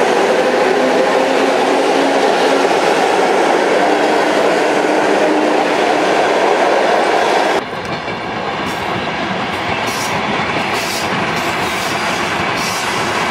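Green electric commuter trains (ЭТ2М multiple units) running close on the track: loud steady running noise with a low electric hum. About 7.5 s in the sound cuts abruptly to another electric train passing, somewhat quieter, with a few sharp clicks of wheels over rail joints.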